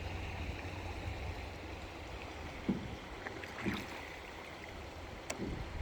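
River water running steadily, with a low rumble, a couple of soft knocks about three and four seconds in and a sharp click near the end.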